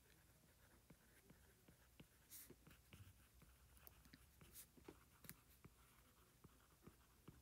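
Faint, irregular ticks and short scratches of a stylus writing on a tablet screen.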